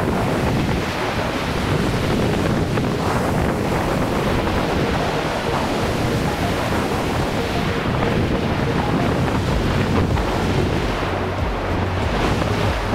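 Ocean surf breaking and washing up the beach in a steady rush, with wind buffeting the microphone and adding low rumbles in gusts near the end.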